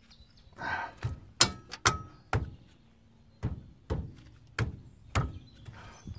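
A ratchet handle on a seized brake caliper bolt is struck about eight times with the heel of a gloved hand, in sharp, unevenly spaced knocks, to shock the bolt loose.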